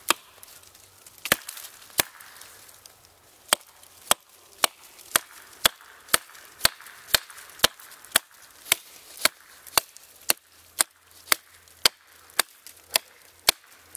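GRIP 1.25 lb fiberglass camping hatchet chopping into a small branch: sharp wooden knocks, a few spaced strokes at first, then a steady two strokes a second. Its dull factory grind makes it glance off rather than bite, "like hitting ice".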